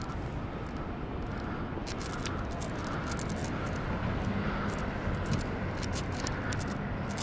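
Urban night ambience: a steady low rumble of distant vehicle engines, with a faint low hum coming in about halfway and light ticking sounds over it.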